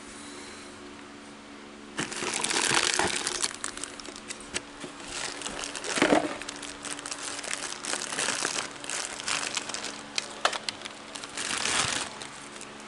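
Packaging rustling and crinkling in irregular bursts as it is handled and pulled out of a box, after a quiet first couple of seconds, with a single knock about six seconds in.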